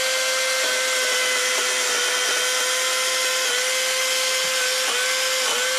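Greenworks battery-powered electric chainsaw running at full speed with a steady whine. Its pitch dips slightly a couple of times later on as the chain bites into the brush.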